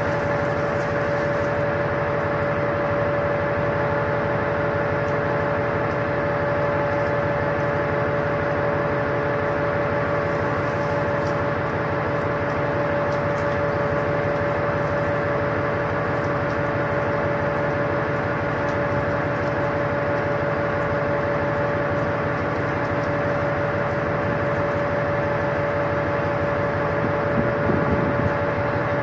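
Steady drone of an anchored ship's running machinery: a constant hum with a high steady tone over an even rushing noise.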